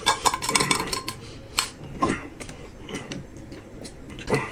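Metal spoon scraping and clinking inside a small tin can and against a glass bowl while the can's red sauce is scooped onto rice. Sharper knocks come near the start, about two seconds in and near the end, with a short ringing after the first.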